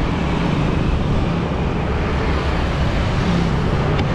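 Steady wind rush on the microphone of a camera riding on a moving bicycle, mixed with road noise.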